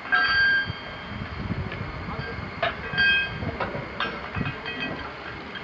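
Metal chain and a steel ring being handled, clanking and clinking together. Two loud ringing clanks, one right at the start and one about three seconds in, with lighter clinks between.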